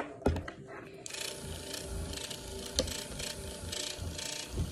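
A short knock, then a barbed felting needle stabbing repeatedly into short-fibre wool from about a second in, a scratchy rasp at about two to three jabs a second, each with a faint dull thump.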